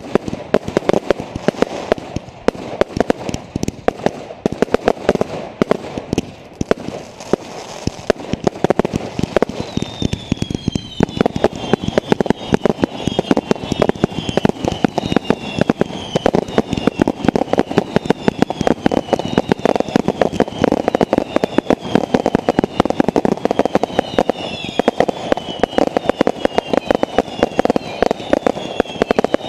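Fireworks barrage: a rapid, dense string of crackling bangs, joined about a third of the way in by repeated falling whistles from whistling fireworks.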